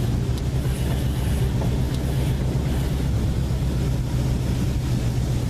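Swamp buggy's engine running steadily as the buggy drives along, a constant low drone.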